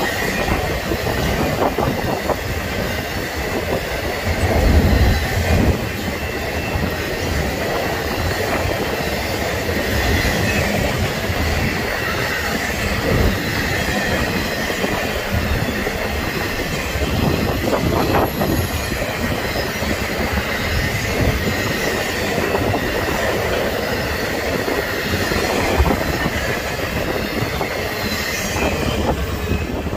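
Intermodal freight train of truck trailers on flatcars passing close at speed: a steady rumble of wheels on rail with scattered clacks over the rail joints and a faint, steady high wheel squeal.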